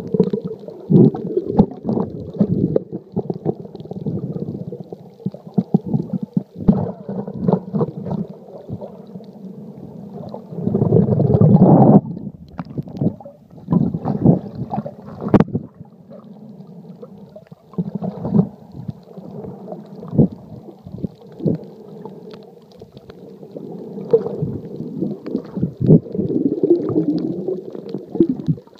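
Muffled underwater sound picked up by a phone sealed in a waterproof case: low churning and gurgling of water with frequent knocks and clicks against the case. A louder rush of water comes about eleven seconds in.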